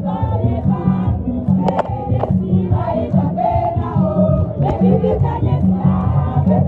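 Borborbor music: drums beating a steady, dense rhythm while a crowd of voices sings together over them.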